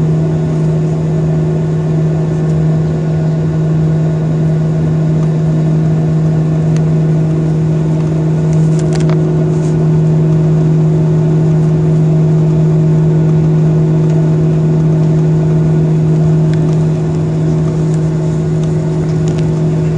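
Steady drone of a Boeing 737's jet engines running at idle thrust while the airliner taxis, heard from inside the passenger cabin.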